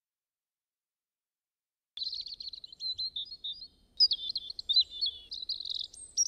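Small birds chirping and singing in quick, high notes, starting about two seconds in after complete silence.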